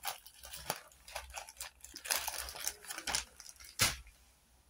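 Small plastic bags of diamond-painting drills being handled, rustling with scattered light clicks and a sharper click just before four seconds in.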